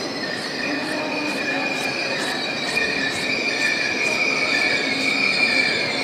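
Sapsan high-speed train (Siemens Velaro) pulling slowly into a station with a steady high-pitched squeal, several shrill tones held together, over the rumble of the train and faint regular clicks.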